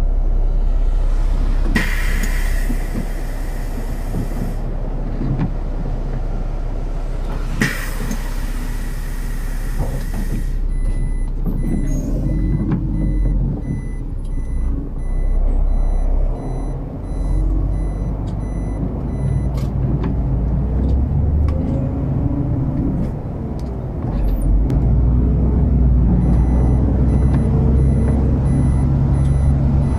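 City bus at a stop: two long hisses of compressed air, then a door-warning beeper pulsing quickly for about nine seconds. After that the bus engine speeds up and changes pitch several times as the bus moves off.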